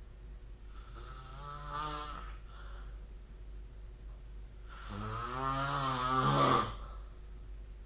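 A sleeping person snoring, two snores about four seconds apart. Each has a clear pitch, and the second is louder and longer.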